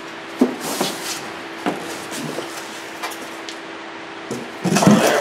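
Cardboard box and packing being handled: scattered knocks and scraping rustles as items are lifted out of the box, the loudest rustle near the end. A steady low hum runs underneath.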